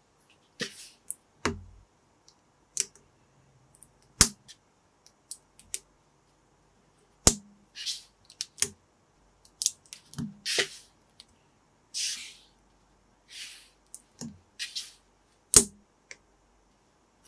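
Small Lego-compatible plastic bricks being handled and pressed together by hand. Sharp snapping clicks come at irregular intervals, the loudest near the end, with short scraping rustles of plastic pieces between them.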